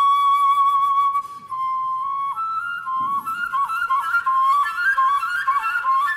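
Music: a solo woodwind instrument playing a melody. One long held note lasts about two seconds, then comes a quick run of short notes stepping up and down.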